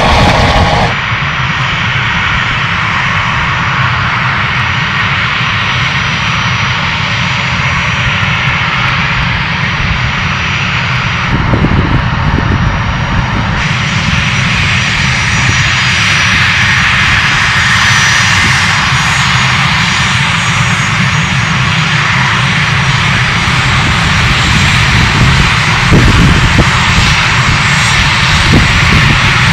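Twin turbofan engines of A-10 Thunderbolt II jets running steadily on the runway, a continuous loud jet noise. In the first second a helicopter is heard before the sound cuts to the jets.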